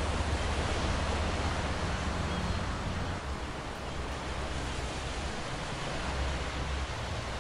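Steady rush of wind and river water, even and unbroken, with a low rumble underneath.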